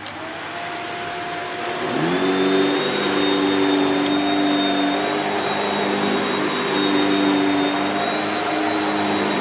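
Shark Powered Lift Away NV681UKT upright vacuum cleaner switched on and run over carpet at full suction. It starts suddenly and comes up to speed, its hum climbing in pitch about two seconds in. It then runs steadily, a rush of air under a hum, with a thin high tone above it.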